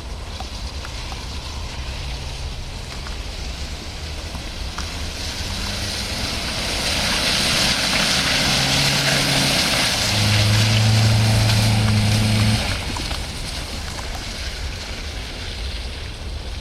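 Nissan Qashqai's 2.0-litre engine working hard off-road through the CVT. Revs climb from about two seconds in and are held loud and steady with a rushing hiss of tyres churning mud, then drop off abruptly about three-quarters of the way through.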